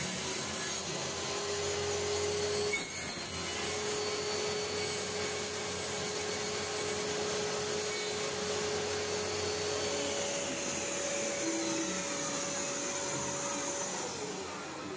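Homemade table saw running and cutting plywood as the workpiece is pushed through the blade: a steady machine noise with a hum that rises in pitch about ten seconds in as the blade runs free. Near the end the pitch falls and the sound fades as the saw spins down.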